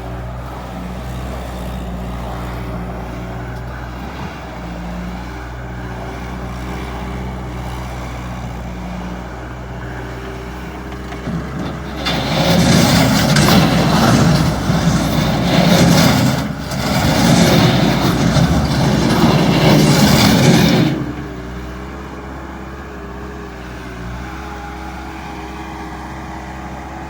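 Bobcat 863G skid steer loader's diesel engine running steadily, then much louder and noisier for about nine seconds in the middle, with a brief dip partway through, before settling back to its steady running.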